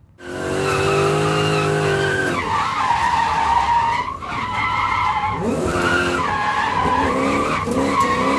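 Car engine revving with tyres squealing, a drifting sound that starts abruptly just after the start. The squeal holds with a wavering pitch, and the engine note rises again about five and a half seconds in.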